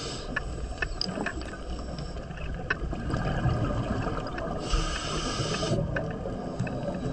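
Water sounds: a steady low rumble with scattered sharp clicks, and a hiss lasting about a second about two-thirds of the way through.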